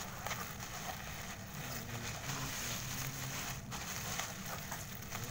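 Plastic bubble wrap crinkling and rustling as it is handled and pulled open by hand.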